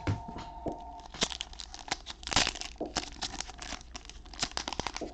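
Cellophane wrapper of a trading-card cello pack being torn open and crinkled by hand, a run of irregular sharp crackles with the loudest about two and a half seconds in.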